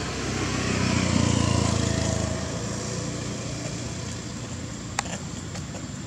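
A motor vehicle passes by, its engine swelling to a peak in the first couple of seconds and then fading away. A single sharp click comes about five seconds in.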